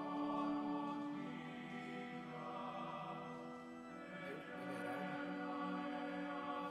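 Soft choral singing in long held notes, with music underneath.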